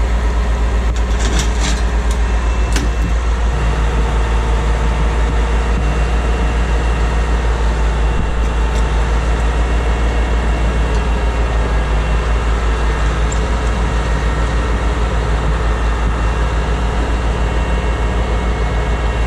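Heavy wrecker's diesel engine running steadily with a deep, even throb while it powers the boom hydraulics for a lift. A few light clicks in the first three seconds.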